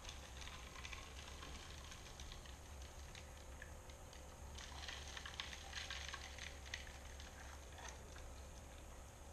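Faint, dense crackle of many small irregular clicks as water carries sand and gravel through a homemade siphon sluice of ABS pipe and plastic gutter channel, busiest about half a second in and again from about four and a half to six and a half seconds in, over a low steady hum.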